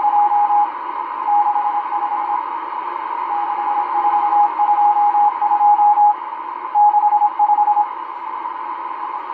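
M12 numbers station Morse code received on a Realistic DX-394 shortwave receiver: a single beat tone keyed on and off in groups of mostly long dashes with short pauses between them. It sounds over a steady band of shortwave static hiss, and the keying stops near the end.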